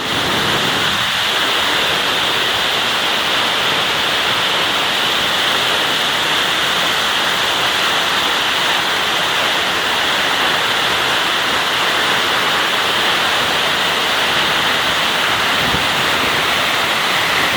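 Waterfall pouring, a loud, constant, even rush of falling water.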